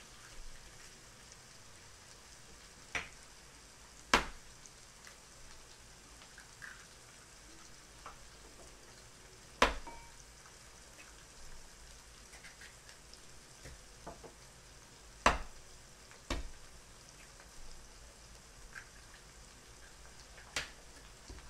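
Chinese sausage and onions frying faintly in a pan while eggs are cracked one after another: about six sharp cracks spread through, the loudest a few seconds apart.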